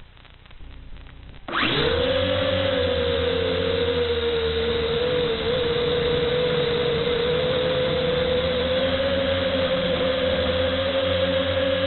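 Multirotor drone's electric motors and propellers spinning up abruptly about a second and a half in, then a steady high whine with a noisy rush over it. The propellers are damaged.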